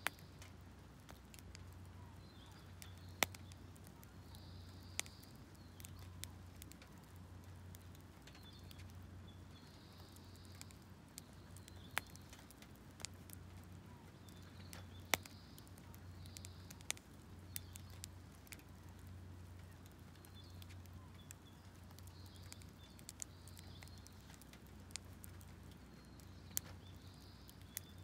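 Firewood burning on charcoal in a stainless steel fire pit, crackling with sharp, irregular pops about every second or two over a faint hiss.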